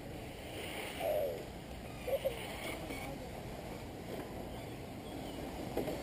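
Electric 1/10-scale RC touring cars running laps on an asphalt track, a steady whir of small motors and tyres, with two brief sharper sounds about one and two seconds in.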